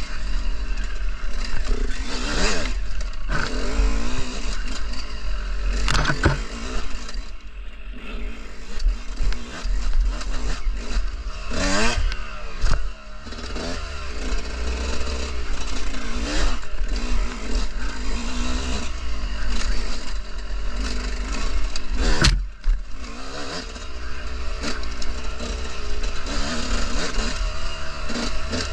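Dirt bike engine revving up and down again and again while being ridden, with a few sharp knocks and some scraping and clatter from the bike over rough ground.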